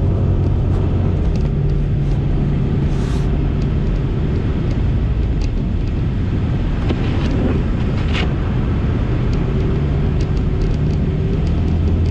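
A car driving at a steady speed, with a constant engine hum and road noise and a few faint ticks.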